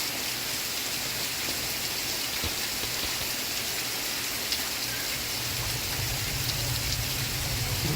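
Steady rain falling, an even hiss of drops with no break. A low hum joins under it about five and a half seconds in.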